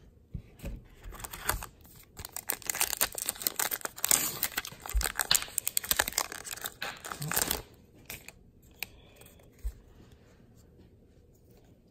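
A baseball-card pack's printed wrapper being torn open and crinkled, a crackly tearing and rustling for several seconds that dies down about three-quarters of the way through to a few faint clicks of cards being handled.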